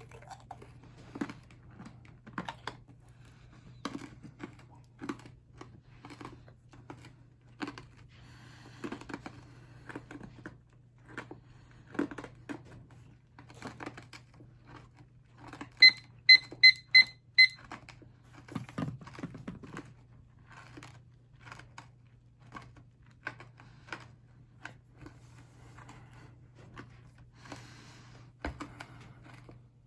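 Scattered light taps and clicks of small objects being handled. About halfway through come five short, evenly spaced high beeps in quick succession, the loudest sounds here.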